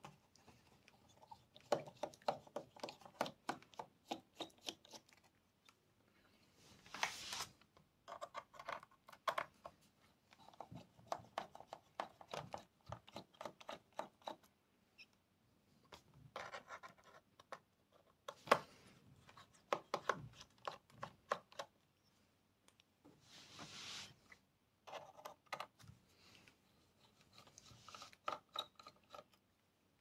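Small screwdriver backing screws out of a 2012 MacBook Pro's aluminium bottom case: bursts of fast little clicks and scraping, metal on metal. A couple of brief rubbing sounds come in between, about 7 and 24 seconds in.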